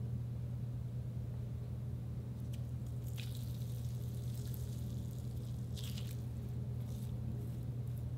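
A giant water-gel bead (Orbeez) squeezed and crushed in a hand, giving a few short wet squishes and crunches as it breaks apart, about three seconds in and again near six seconds. A steady low hum runs underneath.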